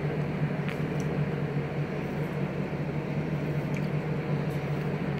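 Steady low mechanical hum of room machinery, with a few faint ticks.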